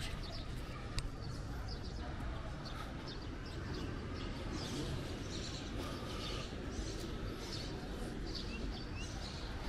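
Small birds chirping on and off in short high notes, over a steady low rumble, with one sharp click about a second in.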